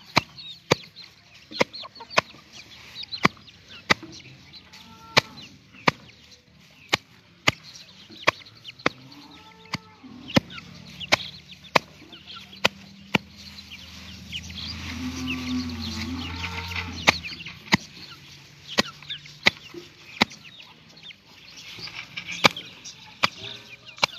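Farmyard sounds: hens clucking now and then and small birds chirping, over sharp clicks that come about every three-quarters of a second and are the loudest thing heard. A low hum swells and fades about midway.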